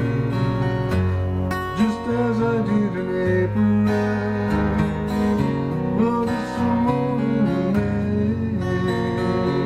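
Gibson jumbo acoustic guitar played solo, chords strummed and picked in an instrumental break between verses.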